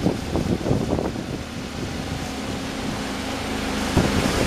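Flood-swollen river rushing past, with wind buffeting the microphone; a steady low hum comes in about halfway through.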